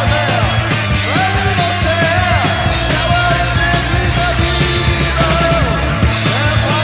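Loud speed metal recording: distorted electric guitars, bass and drums played at full tilt, with a lead line that keeps bending up and down in pitch.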